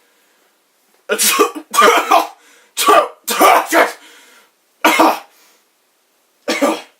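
A person sneezing over and over, acted sneezes in a series of short, sharp bursts, about six of them with brief silences in between.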